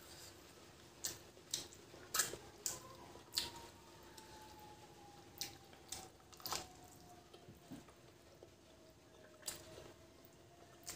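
Wet mouth smacks and clicks of someone chewing chicken curry eaten by hand. A dozen or so sharp, irregular smacks come at uneven gaps.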